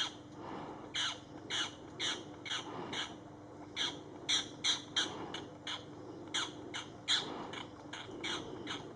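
Birds giving a rapid, irregular series of short, harsh calls, about two a second, each dropping slightly in pitch.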